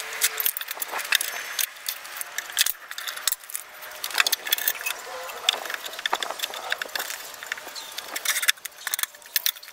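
Irregular clattering knocks and clinks as plywood panels and metal bar clamps are handled while a divider is fitted into a plywood cabinet.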